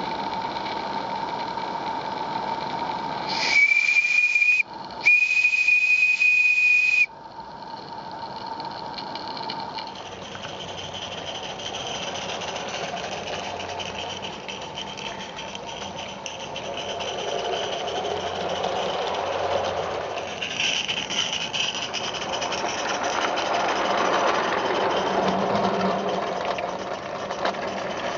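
Live-steam 0-6-0 Merlin Major garden-railway locomotive sounding its steam whistle in two blasts, a short one then a longer one about twice as long, over a steady hiss of steam. It then runs along the track with a rougher, fluctuating running noise.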